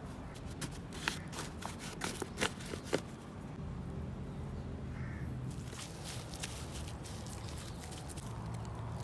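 Hands working damp potting soil around a transplanted seedling in a plastic grow bag: a cluster of short crackling clicks in the first few seconds and lighter rustling later on. A bird calls briefly in the background about halfway through, over a steady low hum.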